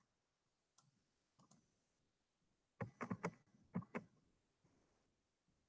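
Computer mouse and keyboard clicks: a few single clicks, then a quick run of louder keystrokes about three seconds in.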